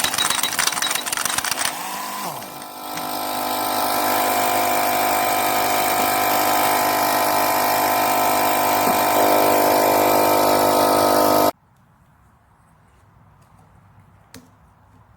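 Impact wrench hammering rapidly on the 1-1/8 inch nut of a Case 580 Super K backhoe's hydraulic cylinder, then running steadily with a whine and no hammering as the nut comes loose, and stopping abruptly about eleven seconds in. Two faint clicks follow.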